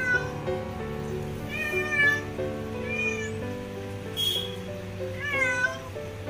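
Domestic cat meowing at a closed door, several short plaintive cries as she begs to be let in, over background music.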